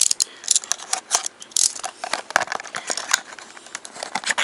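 Small cardboard blind box being cut open with a metal blade and handled: a run of irregular sharp clicks and scrapes.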